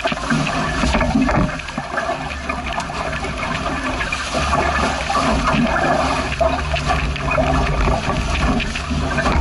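Water rushing and splashing along the hull of a small sailboat heeled over under sail, with a low, uneven rumble of wind on the microphone.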